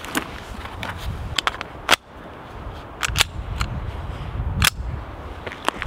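Sharp metallic clicks and clacks of a semi-automatic pistol being handled and readied to fire, a few scattered clicks with the loudest about two seconds in, a pair near three seconds and another near four and a half seconds, over a low rumble.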